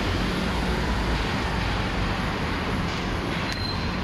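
City street traffic noise: a steady low rumble of vehicle engines and tyres.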